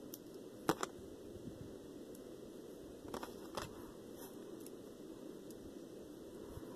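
A few small sharp clicks of small plastic toy pieces being handled, two close together about a second in and a few more around three and a half seconds, over a faint steady low hum.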